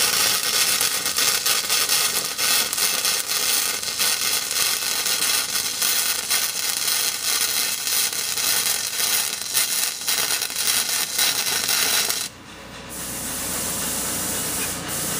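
Flux-cored wire welding arc from a Thermal Arc Fabricator 181i, a steady crackle that stops suddenly about twelve seconds in. A steady hiss remains after the arc goes out.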